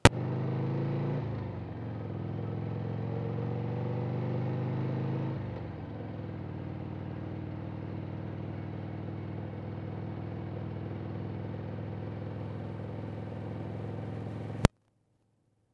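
Harley-Davidson Sportster V-twin engine running under way. Its pitch rises for a few seconds as it accelerates, drops about five seconds in, then holds steady. The sound starts and stops abruptly, with a sharp click at each end.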